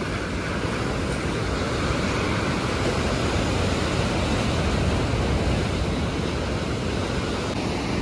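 Steady rush of sea surf, swelling slightly in the middle, with wind buffeting the microphone.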